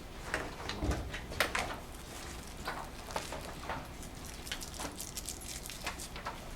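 Scattered soft clicks and rustles of paper being handled in a small room.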